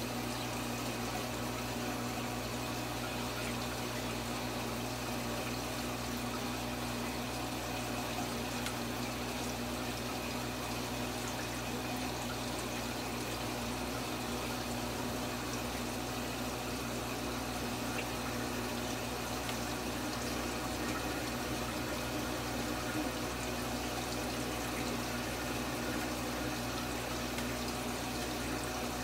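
Water running steadily through a large aquarium's water-change plumbing, over the steady low hum of the aquarium pump.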